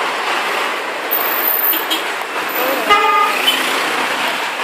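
Bus telolet horn giving one short, loud blast about three seconds in, over a steady background hiss.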